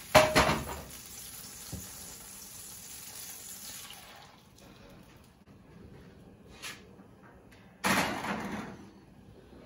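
A cast iron pan clatters down on a gas stove grate, and melted butter sizzles steadily in the hot pan until batter is poured in and the sizzle dies away about four seconds in. Near the end a louder clatter lasting about a second follows as the pan goes into the oven.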